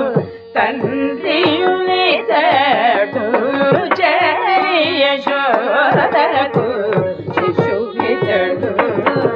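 Carnatic music in raga Mohanam: a gliding, ornamented melody over a steady drone, with regular drum strokes.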